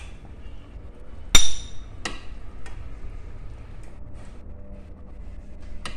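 A metal spoon serving cooked rice onto a ceramic plate: one loud ringing clink about a second and a half in, then a few lighter taps and scrapes.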